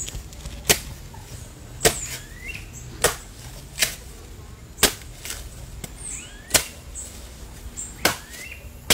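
Machete (cutlass) chopping into a jelly coconut's husk: a series of sharp cuts, roughly one a second and slightly irregular, about eight in all.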